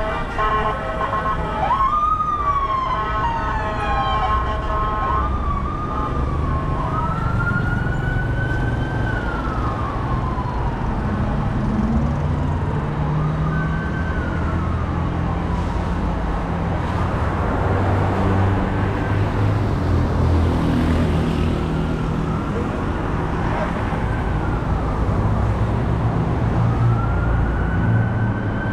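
Emergency-vehicle siren wailing, its pitch rising and falling in slow sweeps every few seconds, over the low rumble of street traffic. A steady, many-toned blare sounds in the first few seconds.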